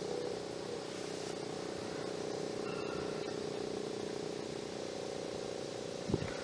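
Federal Signal STH-10 outdoor warning siren winding down at the end of its test, a low steady tone. A short thump about six seconds in is the loudest moment.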